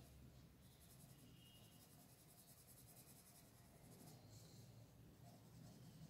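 Faint scratching of a colour pencil shading on paper, barely above near silence.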